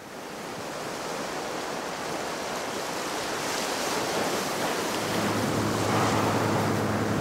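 Seaside ambience: a steady wash of wind and surf noise that fades in and slowly grows. A low steady hum joins about five seconds in.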